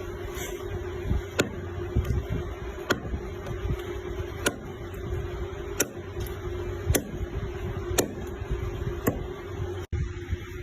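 A knife chopping through pork leg onto a cutting board: a sharp chop about every second and a half, with the cutting noise of the blade in between, over a steady hum.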